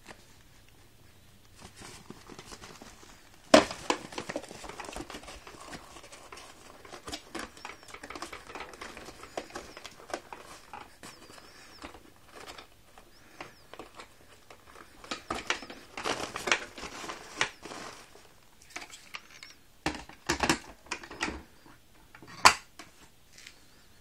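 Hoover Turbopower 2 upright vacuum being handled with its motor off: the paper dust bag rustles and the plastic bag-compartment cover and fittings click and knock as they are worked and shut. The sharpest snaps come about three and a half seconds in and near the end.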